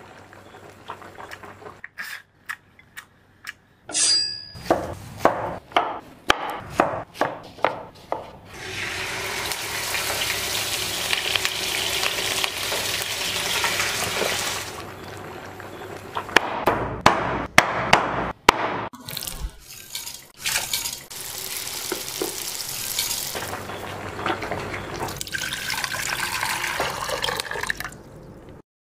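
Close-up kitchen cooking sounds. A run of sharp clicks and taps from utensils and ingredients lasts several seconds. Then come long stretches of liquid sound, pouring and sizzling in a pan, broken by a few more taps.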